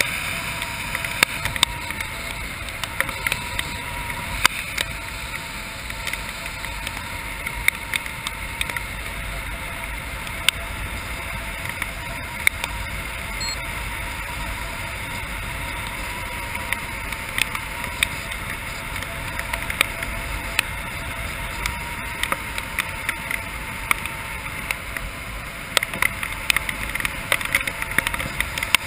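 Air rushing past a helmet-mounted camera during a parachute descent in rain, a steady rush with scattered sharp ticks of raindrops striking the camera.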